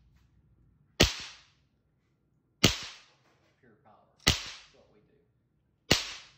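Cyclops Boss electric fence charger (41 joules stored, 32 joules output) firing its high-voltage pulses through a potato slice wired across its ground and fence terminals. Each pulse arcs into the potato with a sharp electric crack: four cracks, evenly spaced about one and a half seconds apart.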